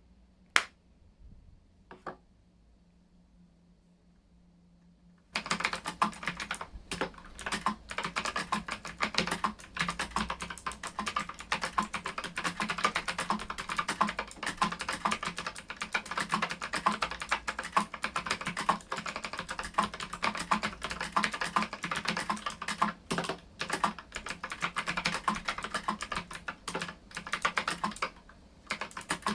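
Mechanical keyboard with clicky blue switches and round typewriter-style keycaps. Two isolated key clicks come first, then fast, continuous typing starts about five seconds in and pauses briefly near the end.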